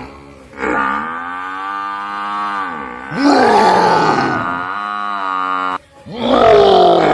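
Long, pitched cow-like bellows, three in a row. The first sags and then holds steady. The second rises into the loudest, roughest call. After a short break near the end, a third loud call begins.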